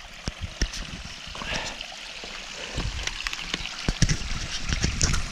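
Small hill stream trickling over rocks, with scattered clicks and knocks from the head-mounted camera being handled.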